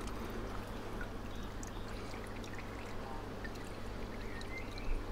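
Hot rendered bacon fat poured from the Ninja Foodi's inner cooking pot into a glass: a thin, steady trickle, with a light knock near the end.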